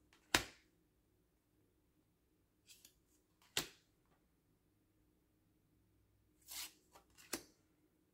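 Stiff oracle cards being slid one at a time through the hands: several short, crisp swishes and snaps as cards are moved across the deck, the loudest just after the start, with quiet between them.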